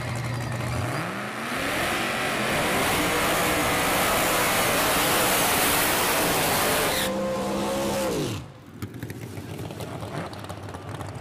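3000-horsepower 1958 Chevrolet Del Ray wagon drag car's engine revving up from idle about a second in and held at high revs through a smoky burnout. It is very loud. About eight seconds in the revs fall away and the sound drops off abruptly, leaving a fainter engine note.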